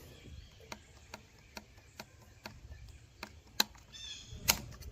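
Faint, evenly spaced ticking, about two to three light clicks a second, with a short high chirp near the end.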